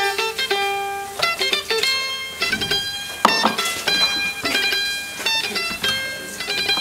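Background music: a plucked-string instrument playing a quick run of short, bright notes.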